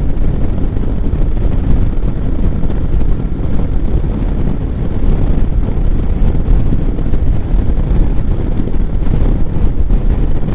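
Kawasaki motorcycle at a steady cruise on the open road, its engine and road noise mixed with wind rushing over the microphone.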